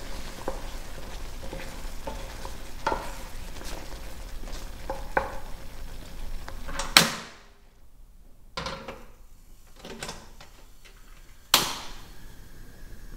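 Food sizzling in a pan, with small clicks of a utensil stirring it. About seven seconds in, a sharp knock comes and the sizzle drops away. A few softer knocks follow, and a second sharp knock comes near the end.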